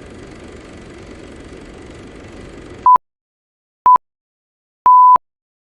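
A steady low noise cuts off abruptly about three seconds in. It is followed by three loud electronic beeps at one pitch, with dead silence between them: two short beeps, then a longer one.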